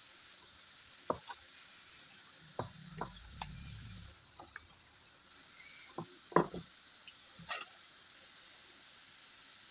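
Scattered small clicks and taps of hands and hand tools working component leads and copper wire on a wooden circuit board, with a brief low handling rumble around three seconds in. The sharpest click comes about six seconds in.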